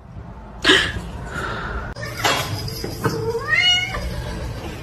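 A domestic cat meowing, ending in one long meow that rises in pitch, with a couple of shorter, harsher sounds before it.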